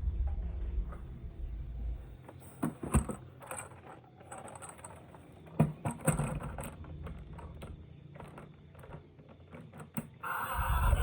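Scattered clicks, knocks and scrapes of plastic toy vehicles and packaging being handled. A low rumble fades out over the first two seconds.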